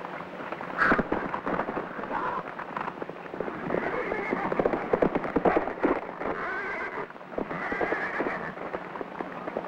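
A black Arabian stallion neighing several times and fighting a lasso rope, with hooves thudding and a sharp knock about a second in. A steady low hum runs under it.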